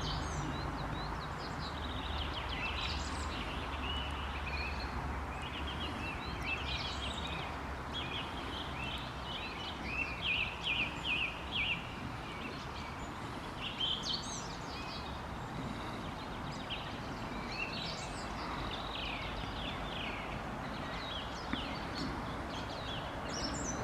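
Songbirds singing and calling, with many short chirps and trills and a run of four louder notes about ten seconds in, over a steady background hiss.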